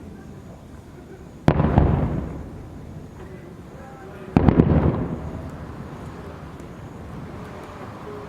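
Two aerial firework shells bursting about three seconds apart, each a sudden boom followed by a rumbling tail that fades over about a second.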